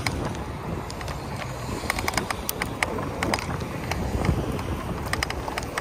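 Wind buffeting the microphone and tyre rumble as a Vitilan i7 Pro folding ebike rides along a concrete sidewalk, with road traffic passing alongside. A run of sharp clicks and rattles starts about two seconds in.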